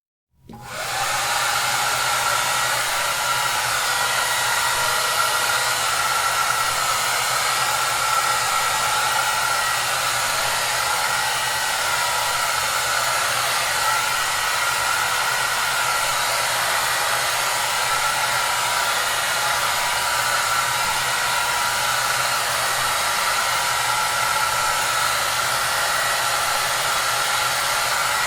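Hair dryer running steadily: an even rushing noise with a faint steady whine. It switches on about half a second in, right after a brief silence.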